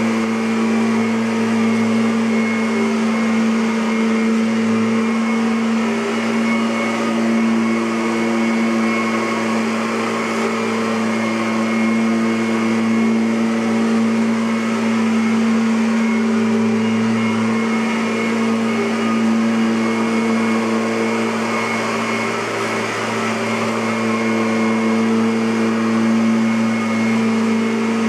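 Kirby Avalir G10D bagged upright vacuum cleaner running steadily: a loud, even motor hum with a hiss of rushing air.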